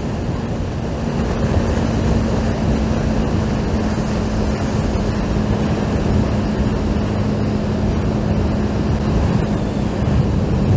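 Wind rushing over a helmet-mounted microphone while riding at speed, over the steady hum of the Honda GTR150's single-cylinder engine holding one pitch. The engine tone fades about nine and a half seconds in.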